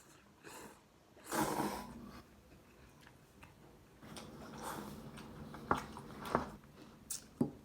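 A person eating instant ramen noodles: a loud noisy sucking sound about a second in, then chewing with a few sharp clicks near the end.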